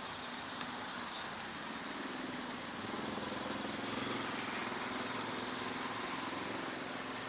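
A motor engine running, a low hum that grows louder about three seconds in and eases off near the end, over a steady background hiss.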